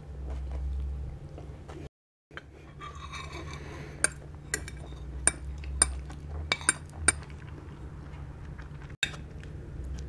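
Metal spoon and fork clinking and scraping against a ceramic plate, with a run of sharp clinks between about four and seven seconds in.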